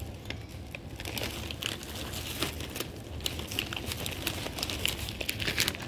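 Several cats crunching dry kibble: an irregular run of small crisp crunches and clicks.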